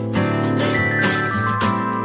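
Instrumental background music with a steady beat.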